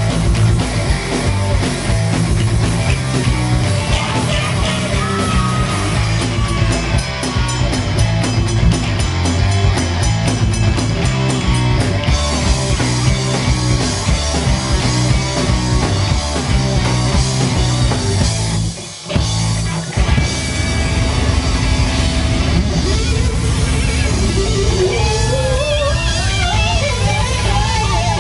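Live rock band playing: electric guitars and a drum kit with a steady beat. The band stops sharply for about a second two-thirds of the way through, then comes back in, and a wavering melodic line rises over it near the end.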